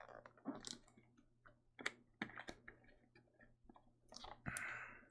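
Faint, irregular clicks of a computer keyboard and mouse, a few scattered taps with short gaps between them.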